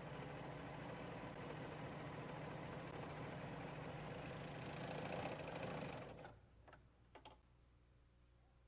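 Husqvarna Huskylock 936 serger running steadily as it sews an overlock seam along a fabric edge, stopping about six seconds in. Two light clicks follow.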